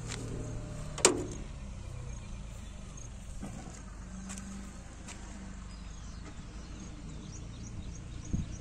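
Diesel engine of a 62 kVA generator set running steadily with a low hum. About a second in, the steel control-panel door shuts with a sharp metallic clang, and a smaller knock comes near the end.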